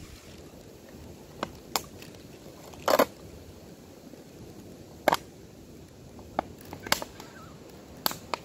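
Thin plastic drinks bottle crackling as it is squeezed and worked by hand: a string of separate sharp crackles, the loudest a short cluster about three seconds in.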